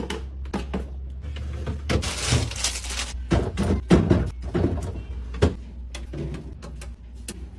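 Groceries and containers being handled and set down while a fridge is restocked: a series of knocks and clunks, with a stretch of rustling about two seconds in.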